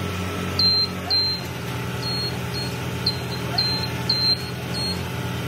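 Short high beeps from a construction machine's motion or backup alarm, about two a second, over the steady low running of an engine.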